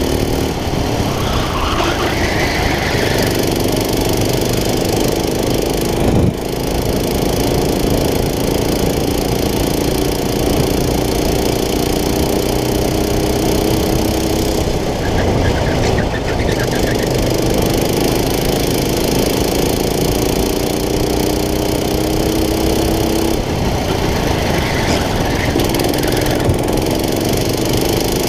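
Racing kart engine heard from the driver's seat, running under load. Its pitch climbs slowly as it gains revs and drops back sharply a few times as the kart slows.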